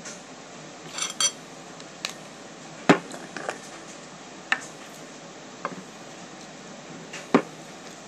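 Handling of a glass jar with a plastic screw lid: the lid clicks as it is twisted off, and the jar knocks on the table, along with light taps of glass and cutlery. Short separate clicks and knocks, the sharpest about three seconds in and near the end.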